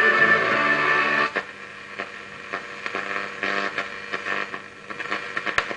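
Blaupunkt Barcelona valve radio giving a steady hum with hiss and scattered crackles, between or off a broadcast. A snatch of louder programme sound fades out about a second and a half in.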